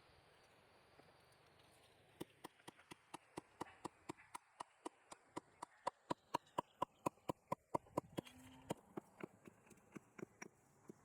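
A fast, even series of sharp knocks, about five a second, starting about two seconds in, growing louder toward the middle and easing off near the end.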